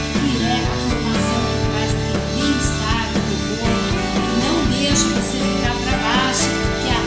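Background music: a song with singing over instruments.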